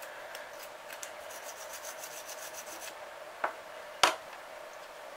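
A toothbrush scrubbing a small metal part from an Enya 90-4C model four-stroke engine, quick scratchy back-and-forth strokes, about seven a second at their fastest. The scrubbing stops, then two sharp knocks about half a second apart, the second louder.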